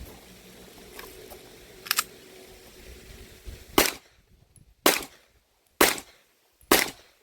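Pistol fire: four single shots about a second apart, starting about four seconds in, as a slow five-round string at 15 yards. A sharp double click about two seconds in comes before the first shot.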